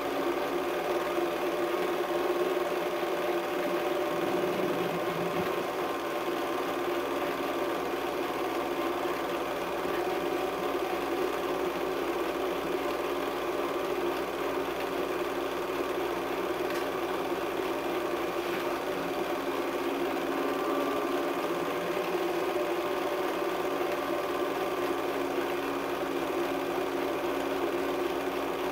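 Movie projector running steadily: its motor and film mechanism make a continuous mechanical whir with a fixed hum.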